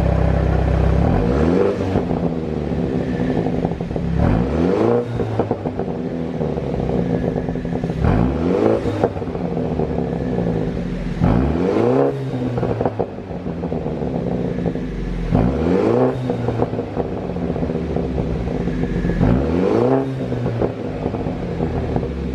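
BMW G30 530i's turbocharged 2.0-litre four-cylinder engine revved repeatedly, about six blips some four seconds apart, each rising and then falling. Exhaust pops and crackles on the overrun as the revs drop come from a pop-and-crackle tune.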